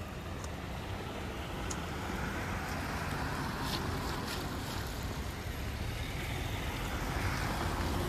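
Wind buffeting the microphone as a low rumble under a steady rushing noise that slowly swells toward the end, with a few faint ticks.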